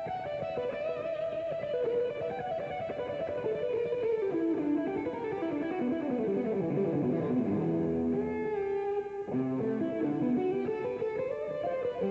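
Instrumental music led by guitar, with a run of notes stepping down in pitch a few seconds in and another climbing back up near the end.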